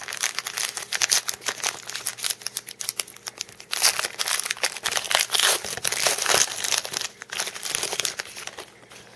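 Crinkling of a foil trading-card pack wrapper as it is handled: a dense run of small crackles, thickest in the middle.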